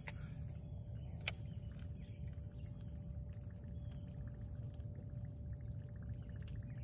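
Fishing reel being worked after a cast: a sharp click about a second in, then faint, fine rapid ticking as the reel is cranked, over a steady low rumble and a thin steady hum.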